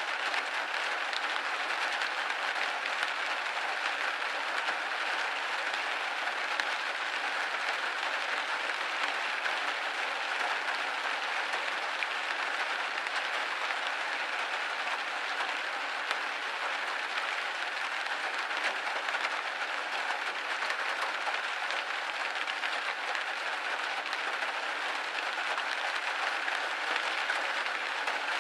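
Rain hitting a window pane: a steady, dense patter of many small drop ticks, even throughout.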